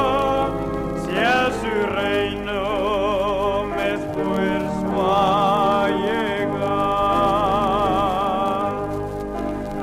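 A hymn sung with a wide vibrato on long held notes, over sustained organ chords, with a few sliding notes about a second in.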